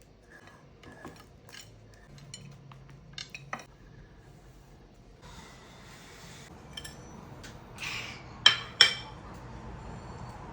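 Cutlery and dishes clinking and tapping, with scattered light clicks, a second or so of scraping, and two sharp ringing clinks in quick succession near the end.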